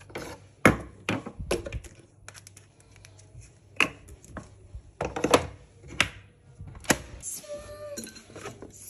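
Irregular sharp plastic clicks and knocks from handling a Krups Nescafé Dolce Gusto capsule coffee machine: the capsule holder being pulled out and a capsule set into it.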